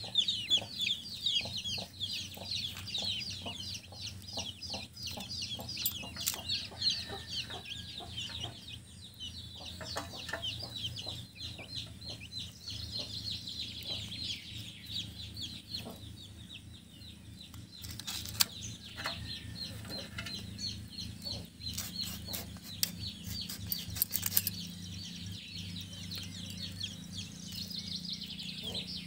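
Birds chirping rapidly and without pause, quick high falling chirps over a low steady hum, broken by a few sharp clicks.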